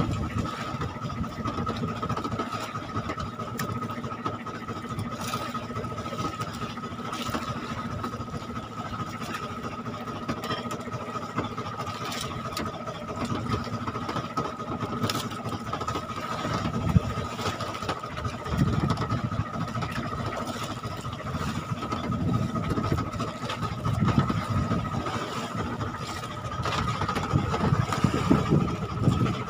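A small engine idling steadily, with a constant high whine over its running noise. Scattered knocks, the sharpest about seventeen seconds in.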